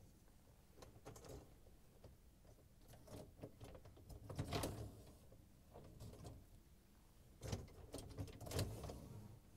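Faint rattling and clicking of a dishwasher's wire upper dish rack being worked along its rails, with louder clatter about halfway through and again near the end.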